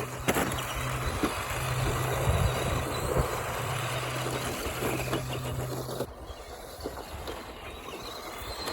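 Tamiya TT02 radio-controlled rally cars running laps on a dirt track: a broad hiss with a low steady hum that breaks off and restarts several times, getting quieter about six seconds in.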